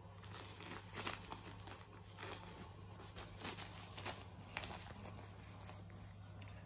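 Plastic catnip pouch crinkling and rustling in irregular short bursts as a Persian kitten paws and bites at it, over a faint steady low hum.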